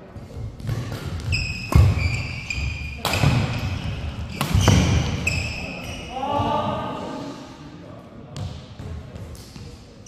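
Badminton doubles rally on a court mat. Rackets hit a shuttlecock with sharp cracks, three loud ones each about a second and a half apart, while shoes squeak and thud on the floor. A player's voice calls out about six seconds in, and the play falls quieter toward the end.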